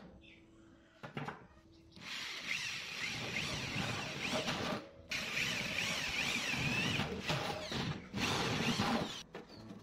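Electric hand drill boring through the thin steel of an oil drum in three spells, with a wavering high squeal as the bit cuts the metal. A light knock comes about a second in.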